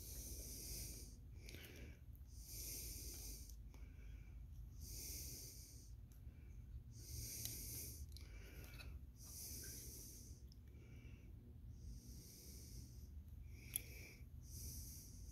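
Faint, slow breathing close to the microphone, a breath about every two and a half seconds, with a single sharp click near the end.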